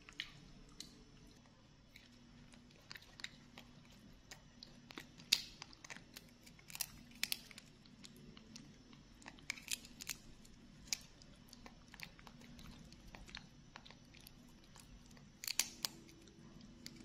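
Faint, irregular crunching and crackling of peanuts in the shell being cracked open and chewed by monkeys, with a louder crunch about five seconds in and a quick cluster near the end.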